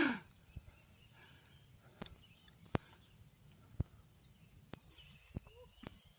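Quiet outdoor background broken by about six sharp, short clicks or knocks, spaced roughly a second apart.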